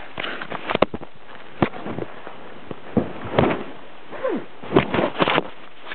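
Handling noise on the camera: an irregular run of sharp knocks and bumps as the camera is grabbed and its microphone covered.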